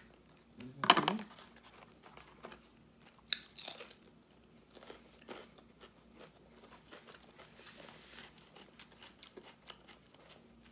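A person chewing a mouthful of crunchy California roll sushi, with crisp crunches. The loudest bite comes about a second in, then the crunching goes on sparser and fainter.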